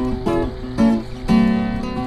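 Background music: an acoustic guitar playing plucked notes and chords, a new note sounding several times a second.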